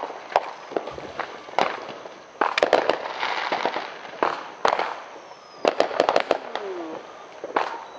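Consumer fireworks going off all around: a steady run of sharp bangs, with clusters of crackling near the middle and about three-quarters of the way through. A man's "ooh" comes near the end.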